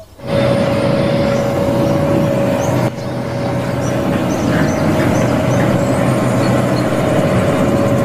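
Single-drum road roller (soil compactor) running steadily on a dirt site, its diesel engine carrying a steady high whine. A brief dip comes about three seconds in, and birds chirp faintly throughout.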